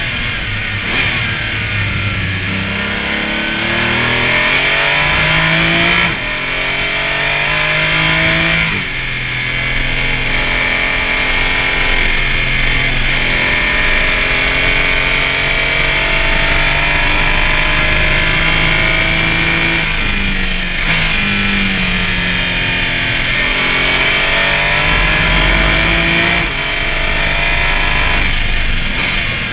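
Porsche Cayman race car's engine under hard acceleration, revs climbing and dropping sharply at each upshift, holding high for a long stretch, then falling with short throttle blips on downshifts about two thirds through before climbing again. A steady rush of wind and road noise runs underneath.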